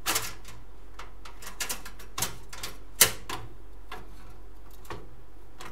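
Sharp plastic and metal clicks and clacks of a graphics card being handled and lined up with a motherboard's PCIe slot, a handful of separate knocks with the loudest about three seconds in.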